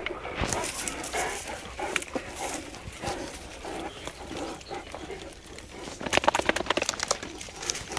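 Dogs, a Great Dane among them, sniffing, tearing and chewing grass as they graze to purge themselves; irregular rustling and chewing, with a burst of rapid crackling about six seconds in.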